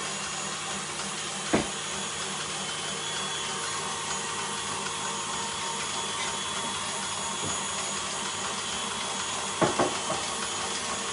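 Tilt-head stand mixer motor running steadily, whipping meringue while it cools. Two short knocks of things set down, about a second and a half in and near the end.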